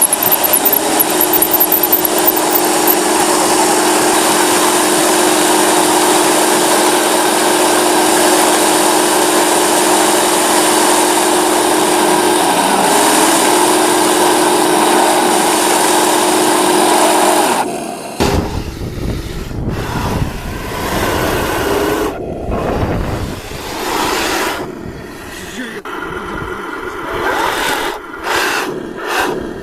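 Heng Long T-90 RC model tank running: its drive motors and gearbox give a steady whine over a loud, even grinding noise. About 18 seconds in this cuts off and gives way to a lower, uneven rumbling.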